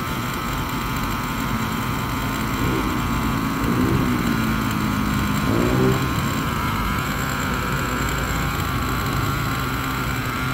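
Small nitro (glow-fuel) engine of an RC monster truck running at idle during break-in, with a brief rise and fall in revs a few seconds in. The engine is not yet broken in and tends to stall at idle.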